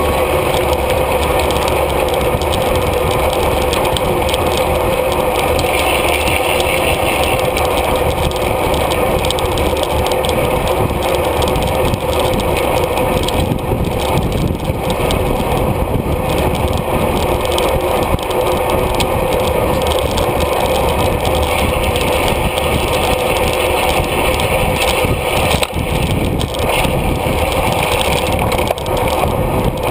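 Steady rush of wind and road noise on a bicycle-mounted GoPro moving at race speed in a pack of riders.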